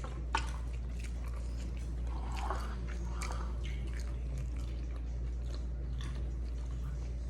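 Close-miked sounds of a person chewing a large mouthful of grilled food: scattered wet clicks and small crunches over a steady low hum.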